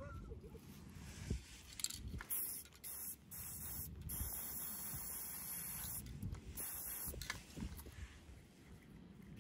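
Aerosol spray-paint can being handled: clicks and knocks as a cap is pushed onto its valve, with a faint hiss of short test sprays.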